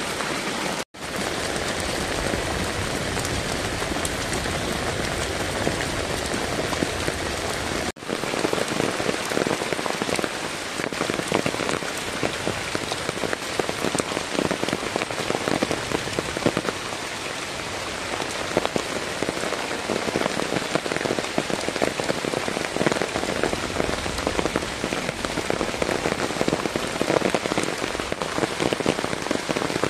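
Heavy rain pouring down and spattering on a flooded dirt path and puddles, a dense, steady hiss. In the first seconds, muddy runoff rushes down a stone-lined drain. The sound cuts out for an instant twice, about a second and about eight seconds in.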